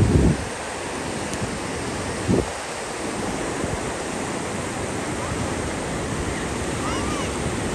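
Ocean surf washing in steadily, with wind on the microphone. Two short loud bursts come at the start and about two seconds in.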